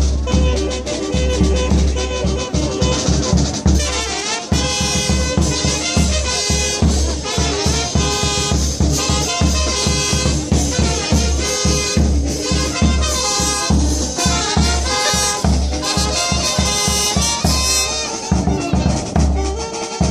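Music with brass instruments playing over a steady, pounding bass beat.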